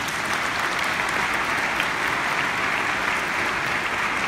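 Audience applauding steadily, a dense even clapping that holds at the same level throughout.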